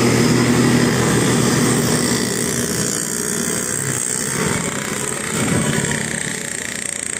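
Bus engine running: a steady low hum for about the first two seconds, then a rougher rumble.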